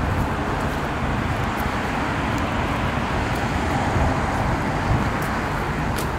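Steady road traffic noise: a continuous rumble of passing cars, heaviest in the low end.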